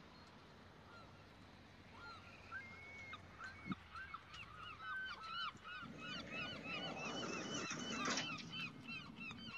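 A flock of birds calling: many short, arched calls repeat and overlap, starting about two seconds in and growing busier. A rushing noise with a low rumble swells under them from about six seconds and cuts off suddenly just after eight seconds.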